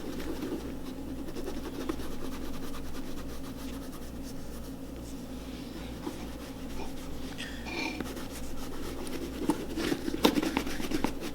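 A cloth rag rubbing boot cream into the oil-slick leather of a Red Wing Blacksmith boot in circular motions: a steady rubbing, with a few light knocks near the end.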